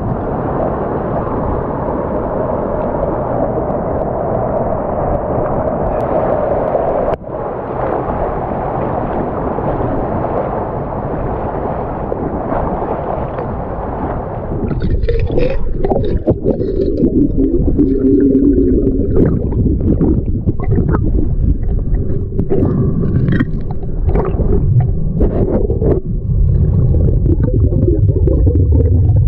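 Steady rushing of river water at the surface. About halfway the microphone goes underwater and the sound turns muffled: a low rumble with gurgling and scattered clicks.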